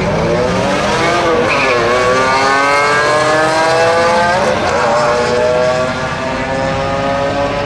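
A car and a pickup truck launching down a drag strip side by side, their engines revving up hard through the gears. The pitch climbs and drops back at gear changes about two and four and a half seconds in, then climbs again as they run away down the track.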